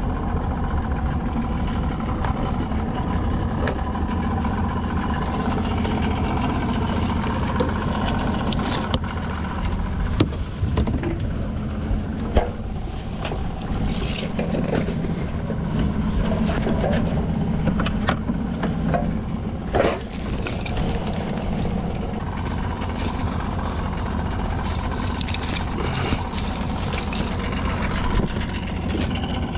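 Small boat's outboard motor running steadily at an even pitch, with a few short knocks and clicks over it around the middle.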